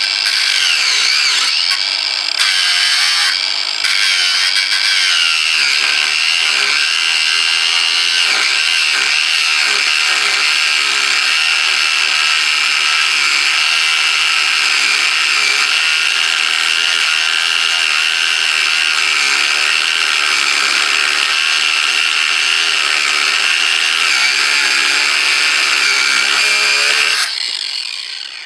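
Cordless Ryobi angle grinder with a thin cutting disc cutting through a slotted steel screw on a cast-iron wood stove, running loud and steady, its whine wavering in pitch as the disc bites. It switches off near the end and winds down.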